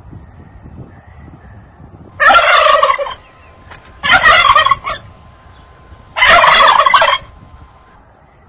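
Male turkey gobbling three times, each gobble a loud rattling call about a second long, roughly two seconds apart.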